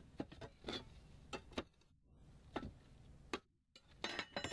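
A handful of sharp taps and clicks, irregularly spaced, with a quick flurry near the end: hand-tool work on the concrete roof tiles and the lead flashing at the base of a stove vent.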